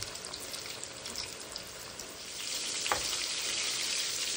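Cornmeal-dredged fish pieces frying in hot oil: a crackling sizzle that swells into a louder, denser hiss about two seconds in. There is a single light knock just before the three-second mark.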